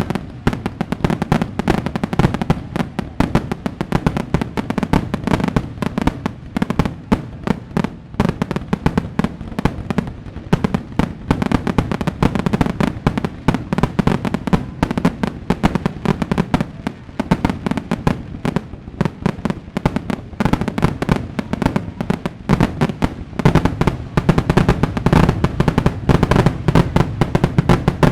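Fireworks going off without pause: a dense run of booming bursts and crackling bangs, thickening and growing louder near the end.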